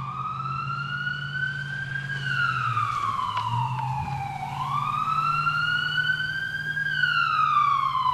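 Siren wailing, its pitch rising for about two seconds and then falling for about two and a half, twice over, with a steady low hum underneath.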